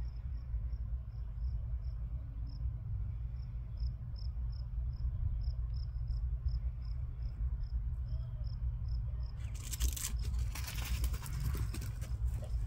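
A cricket chirping in short, evenly spaced high pips, about three a second, over a steady low rumble. A burst of rustling comes about ten seconds in and lasts a couple of seconds.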